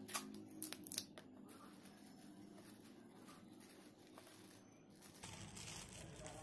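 Faint handling sounds of a polythene sheet and a small cardboard matchbox: a few light taps and clicks in the first second or so, then soft plastic rustling as the sheet is gathered around the box near the end.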